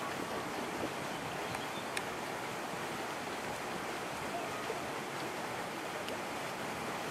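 Steady rushing outdoor noise of wind and small lake waves, with no distinct events.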